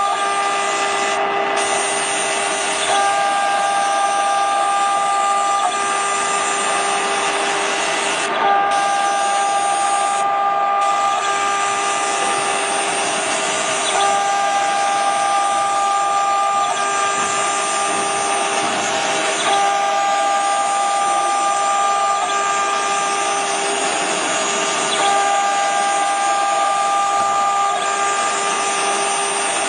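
JNEM-800 CNC stone engraver's spindle and cutter grinding into a stone block: a steady, loud machine whine over a gritty cutting noise. The pitch of the whine shifts back and forth about every three seconds.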